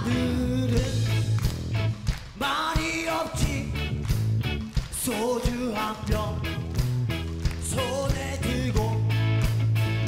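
Rock band playing live, with a male lead vocal singing over bass, guitar and drums that hit in a steady beat.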